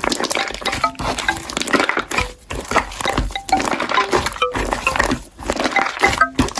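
Creature sound effect: a busy, irregular jumble of short animal-like squeaks and grunts mixed with clicks and clinks.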